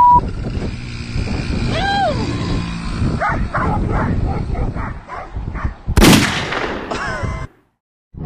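A dog barking and yapping repeatedly, about three barks a second, over a person's shouting, with a loud sudden thump about six seconds in.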